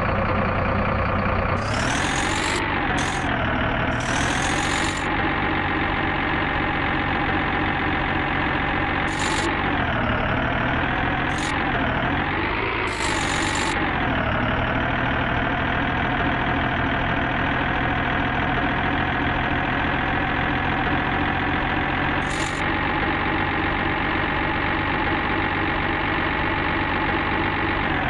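Engine of a construction vehicle running steadily at idle, speeding up briefly a few times, with short high hissing bursts.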